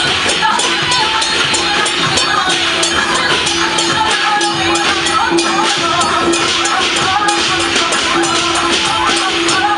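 Taiwanese temple-festival music: a wavering melody over one held steady note, with busy percussion striking many times a second throughout.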